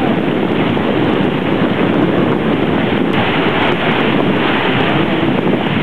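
Steady wind noise buffeting the microphone over breaking ocean surf.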